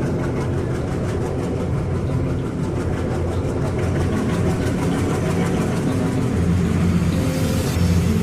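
A heavy engine running steadily, growing slightly louder in the last couple of seconds.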